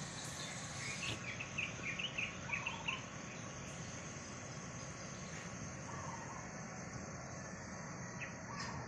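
Birds chirping outdoors: a quick run of short, high chirps in the first few seconds and a few fainter, lower warbling notes, over a steady background hiss.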